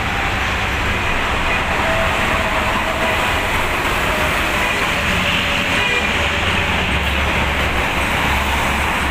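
Steady highway traffic noise, vehicles passing at speed on a toll road; a deeper low rumble swells about seven seconds in.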